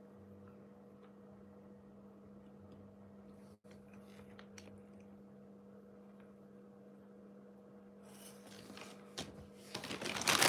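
A steady low hum with a few faint ticks, then near the end a thin plastic bag is loudly crinkled and rustled as it is gathered up.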